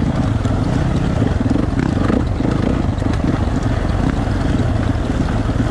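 Dirt bike engine running steadily as the bike rolls down a rocky trail.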